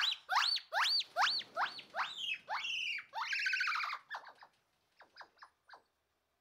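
Gibbon song: a run of whooping notes, each swooping up and then down in pitch, coming faster and higher. About three seconds in it breaks into a quick warbling trill, then a few faint short notes trail off.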